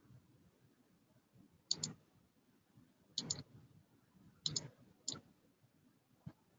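Computer mouse button clicking: three quick double-clicks about a second and a half apart, then a single click.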